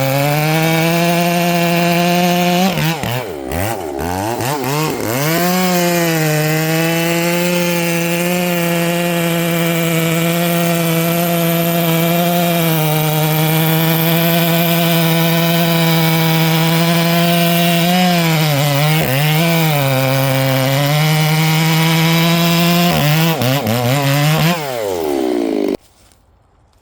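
Ported Echo CS-590 two-stroke chainsaw running at high revs under load, cutting through a thick red oak log. The engine speed dips and recovers a few times as the chain bites, then the revs fall off and the saw cuts out abruptly near the end.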